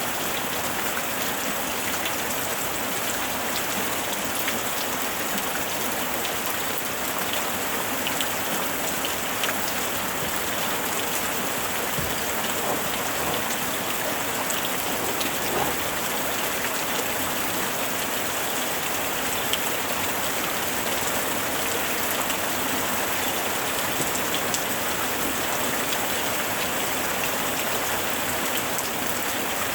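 Steady rain falling on a surface: an even, unbroken hiss with scattered drops ticking through it.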